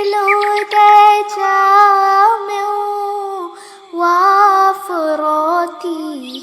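A high voice singing a naat, an Islamic devotional song, with no instruments, in long held notes with gliding ornaments. The phrase breaks off about three and a half seconds in and a new one starts half a second later.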